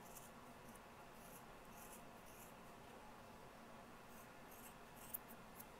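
Faint, repeated snips and rustles of scissors cutting through the wrapped loops of a yarn pom-pom, with a small click about five seconds in.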